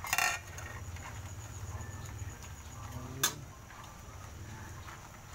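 A saucer is knocked against an aluminium wok with a short clatter as garlic is tipped in. About three seconds later a metal spatula gives one sharp clink on the wok, over a low steady hum.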